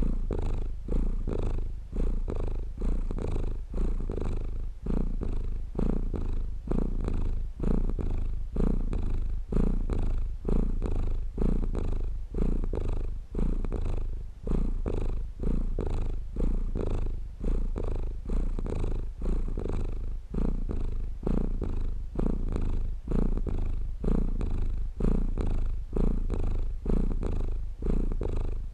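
Domestic cat purring steadily and close, a low rumble that swells and dips in an even rhythm as the cat breathes in and out.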